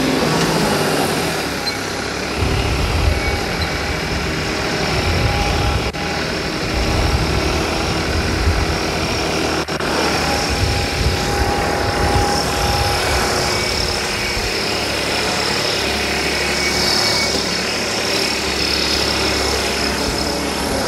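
Farmtrac 45 tractor's turbocharged three-cylinder diesel engine running under load as it pulls a tined cultivator through tilled soil, with the newly fitted turbo intake pipe connected.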